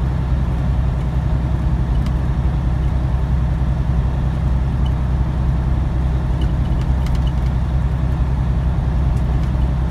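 Semi-truck tractor's diesel engine running steadily at highway cruising speed, heard from inside the cab as an even low drone with road and tyre noise.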